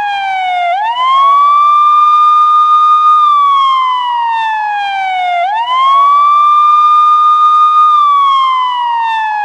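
Police siren in a wail pattern: the tone climbs quickly, holds high for about two seconds, then slides slowly down, the cycle repeating about every four and a half seconds.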